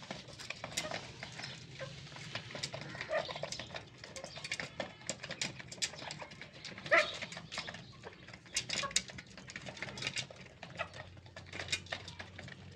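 Brahma hen pecking grain from a galvanised metal feeder: a quick, irregular run of sharp taps, with one louder knock about seven seconds in. Chickens cluck now and then.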